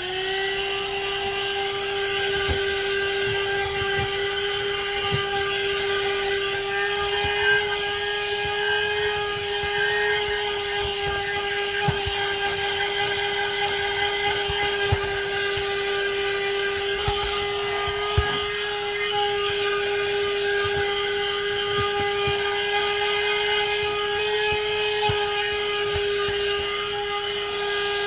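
AutoGrandpa 12V handheld car vacuum cleaner switched on, its motor spinning up at once into a steady high-pitched whine. It runs at an even pitch while being worked over a carpet floor mat, with scattered small clicks. Right at the end it is switched off and the whine starts to fall.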